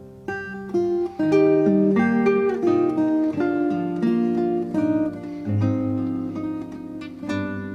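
Acoustic guitar played instrumentally: a run of plucked and strummed notes, several each second, with chords ringing under them.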